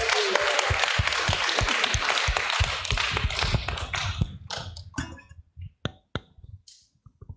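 Audience applauding. The clapping thins out about four seconds in to a few scattered claps, then stops.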